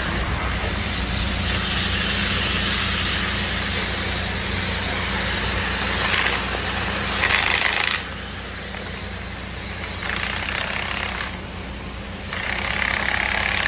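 A machine running with a steady low hum under a loud, even hiss. In the second half the hiss cuts off and comes back several times.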